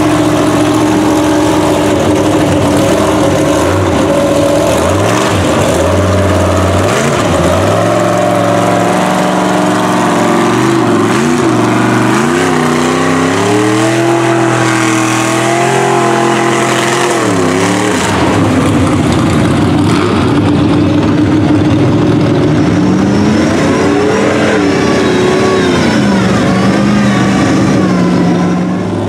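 Big-tire lifted mud trucks' engines revving hard as they push through deep mud and water. The revs climb and fall several times and are held high for a few seconds mid-way.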